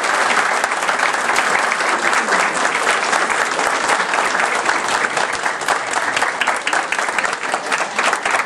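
A roomful of people applauding steadily, a dense patter of many hands clapping at once, for a speech that has just ended.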